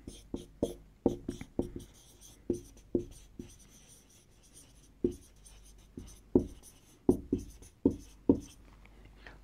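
Whiteboard marker writing a line of text: an irregular run of short strokes and taps of the felt tip on the board, with faint squeaks.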